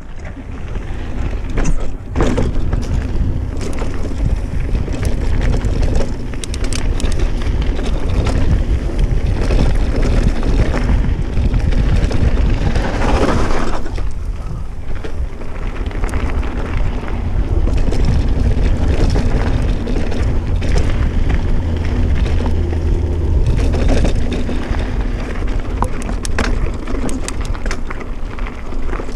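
A Specialized Stumpjumper mountain bike being ridden on a dirt trail: low wind buffeting on the microphone over tyre rumble, with frequent short rattles and clicks from the bike over bumps.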